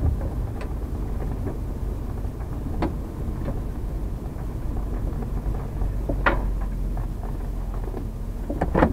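Motorhome's engine running at low speed as it creeps forward, heard from inside the cab as a steady low rumble, with a few sharp clicks and knocks, the loudest near the end.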